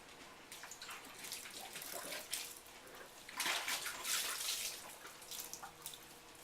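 A horse drinking water: irregular slurps and splashes, loudest a little past the middle.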